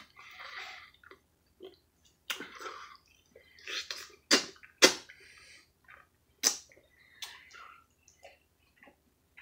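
Close-up mouth sounds of eating juicy ripe mango: wet slurping, sucking and chewing in irregular bursts, with a few sharp lip smacks.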